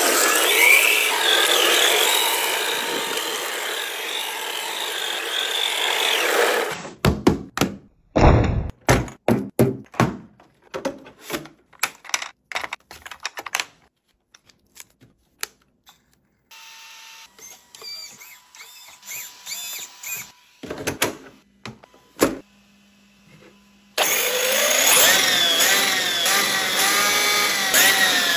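A car's spinning tyres and revving engine for about seven seconds. Then a run of sharp clicks and snaps as an RC truck's battery connector and parts are handled. Near the end, an RC truck's electric motor whines up and down as its wheels spin freely off the ground.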